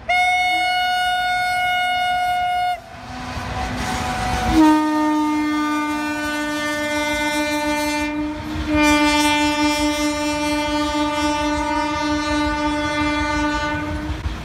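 Indian Railways electric locomotive sounding its horn as a goods train passes: a higher horn blast of nearly three seconds, then after a short break a long, lower, fuller blast that dips briefly about eight seconds in before going on. Underneath, the rumble and clatter of the freight wagons rolling by.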